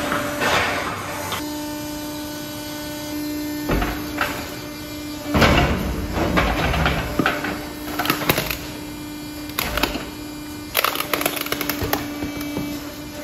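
Hydraulic grapple crane working in a pit of bagged waste: a steady machine hum runs under repeated crunching and rustling of plastic bags and knocks of the steel grapple. The loudest crunch comes about five and a half seconds in.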